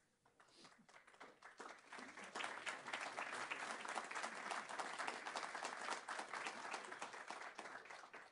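Audience applause: scattered claps that build into a full round of clapping and die away near the end.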